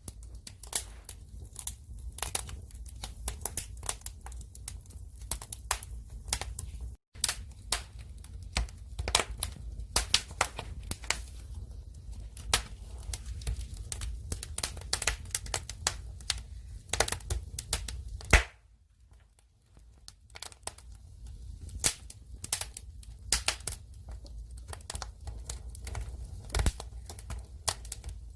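Firewood burning: irregular sharp crackles and pops of the burning wood over a low, steady rumble of the fire. The sound cuts out briefly twice, for a moment about a quarter of the way through and for a second or so about two-thirds through.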